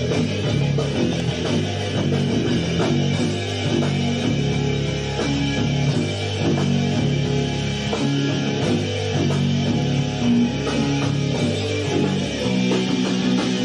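Rock band playing an instrumental take: electric guitar, bass guitar and drum kit, loud and unbroken, with no vocals.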